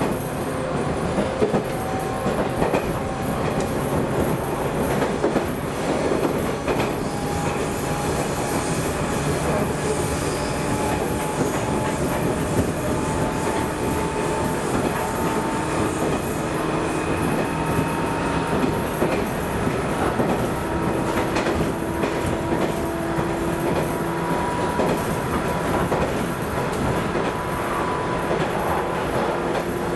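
Interior running noise of a JNR 213 series electric train's motor car: a steady roll of steel wheels on rail, with a faint traction-motor whine that rises slowly in pitch as the train gathers speed.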